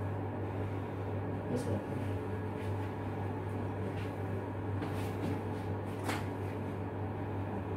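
Steady low machine hum, with a few light metallic clinks of tools and parts at the fire-main valve's flange joint, the sharpest about six seconds in.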